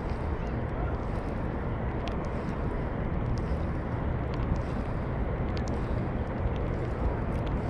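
A steady low rumbling outdoor noise with a few faint scattered ticks.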